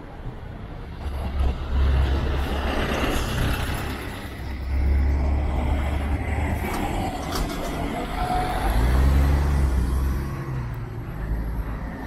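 City street traffic: motor vehicles drive past with a low engine rumble that swells and fades three times.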